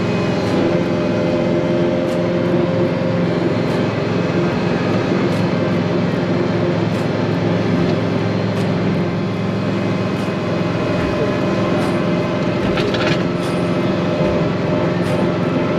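Tractor engine running steadily under load with its mounted snowblower turning and throwing snow, heard from inside the cab, with a few faint ticks and a short rattle near the end.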